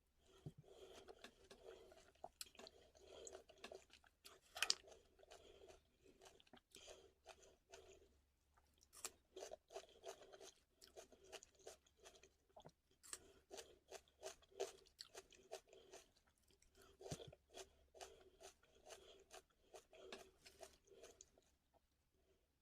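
A person chewing crunchy food close to the microphone, with a steady rhythm of crisp crunches and wet mouth sounds; one sharp crunch is loudest about four and a half seconds in.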